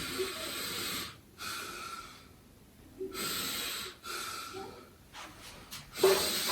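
A man breathing audibly in and out through his mouth to imitate normal vesicular breath sounds: two deep breaths, each a longer in-breath running straight into a shorter, fading out-breath. A louder breath comes near the end.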